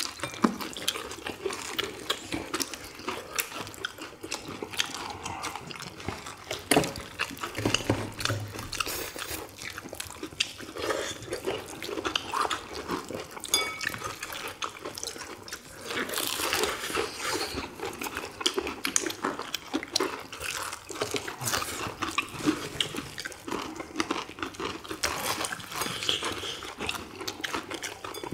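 People biting and chewing crispy fried chicken drumsticks: a steady run of small crunches, clicks and wet mouth noises.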